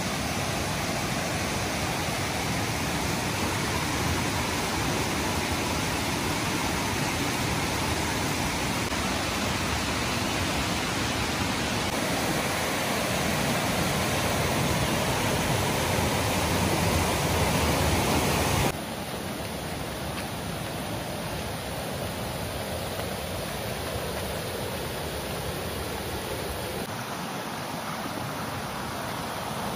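Steady rush of a jungle river tumbling over boulders. About two-thirds of the way through it cuts suddenly to a quieter, gentler flow of a shallow stream.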